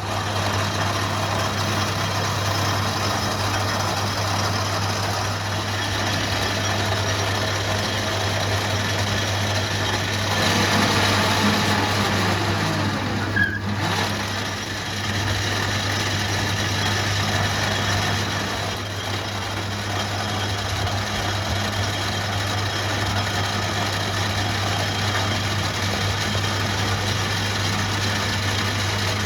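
An engine or motor running steadily with a constant low hum.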